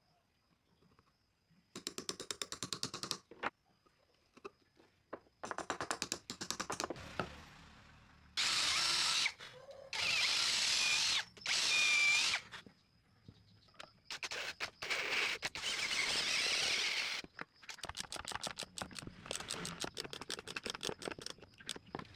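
Hand and power tools working a bolted wood joint. There are bursts of rapid, evenly spaced clicking, and in the middle several loud, steady runs of a power tool, each a few seconds long and stopping abruptly.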